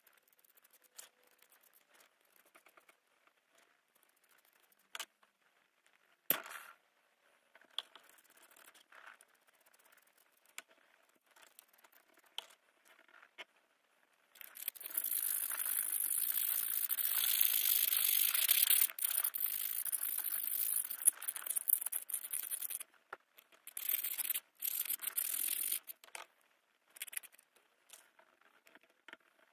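Toothbrush bristles scrubbing needle-nose pliers in a tub of liquid: a steady, scratchy scrubbing noise that starts about halfway through and lasts about eight seconds, then a few shorter bursts of scrubbing. Before that come faint wet clicks and one sharp click.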